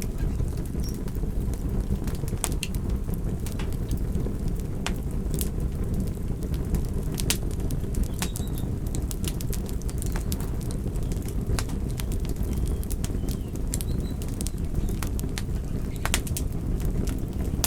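Fireplace fire crackling, with irregular sharp snaps and pops over a steady low rumble.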